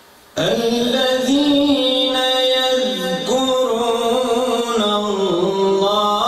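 A man's voice reciting the Quran in the melodic chanted style of tajweed, holding long notes with small ornamental turns and dips in pitch. It starts suddenly about half a second in, after a short pause for breath.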